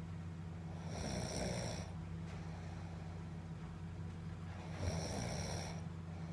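A person snoring: two long snores, one starting about a second in and one about five seconds in, each lasting roughly a second, over a steady low hum.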